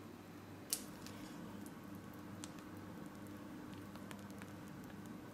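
Faint squishing and crinkling of a plastic piping bag being squeezed as meringue is piped, with scattered small ticks and one sharp click under a second in, over a faint steady hum.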